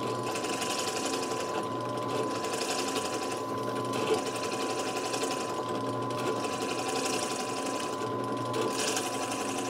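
Drill press running steadily while a carbide-head barrel trimmer cuts the end of a pen blank down to its brass tube. A steady motor whine runs throughout, with a higher cutting hiss that swells and fades every second or two.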